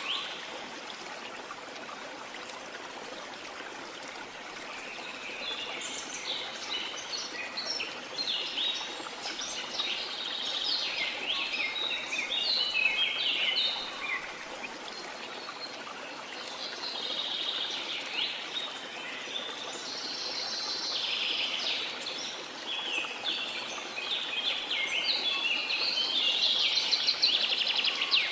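Birds singing and calling in quick repeated chirps and trills over the steady hiss of running water. The bird calls come in bouts, the busiest from about six seconds in and again near the end.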